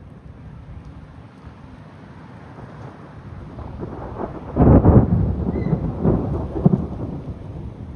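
Thunder from a nearby lightning strike: a low rumble builds, then a sudden loud clap about halfway through, rolling on in several pulses before dying down.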